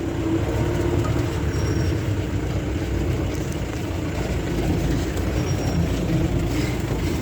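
Off-road jeep driving on a forest track: a steady low rumble of engine and body rattle.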